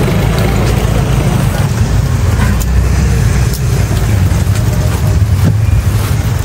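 Loud steady rumble of a rainy street: heavy rain on tarpaulin awnings mixed with motor traffic.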